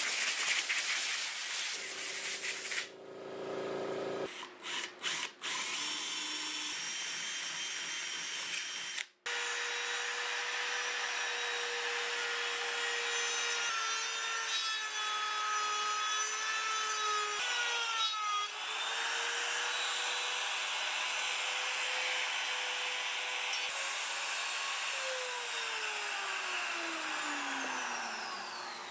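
Power sanding noise for the first few seconds, then a compact trim router running with a steady high whine as it cuts into walnut, its pitch dipping briefly under load a couple of times. Near the end the pitch slides down steadily as the router is switched off and winds down.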